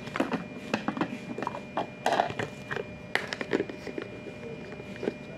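Hard plastic clicking and knocking as a capsule blender's orange body is turned over and fiddled with in an attempt to open it. The clicks come thick at first and thin out about four seconds in.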